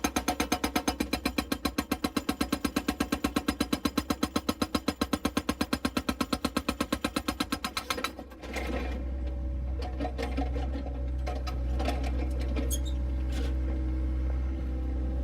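Excavator's hydraulic breaker hammering the concrete cover of an old chamber in a fast, even rhythm of about eight blows a second, stopping abruptly about eight seconds in. After it stops, a steady low engine rumble with a few light knocks.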